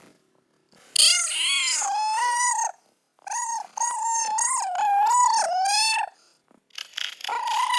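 Kitten crying: three long, high, wavering meows in a row.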